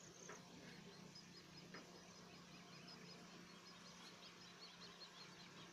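Near silence: faint outdoor ambience with a quick run of small, high chirps and a low, steady hum underneath.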